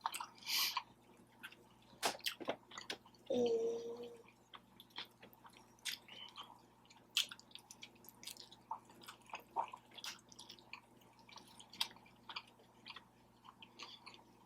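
Close-miked mouth chewing of consomé-dipped birria tacos: soft, irregular smacks and clicks, with a short hummed voice sound about three and a half seconds in.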